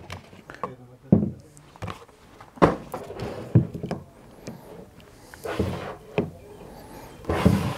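Cardboard box scraping and rustling as hard-cased prismatic LiFePO4 battery cells are slid out. Several sharp knocks come as the cells are set down on a wooden table and pushed together.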